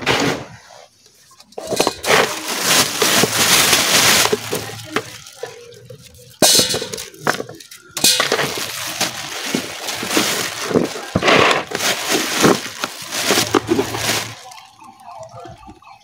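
Crinkly rustling and clattering as a black plastic bag is handled and dried turmeric roots are moved about in a plastic basin, in long rough stretches with sharp starts about six and a half and eight seconds in.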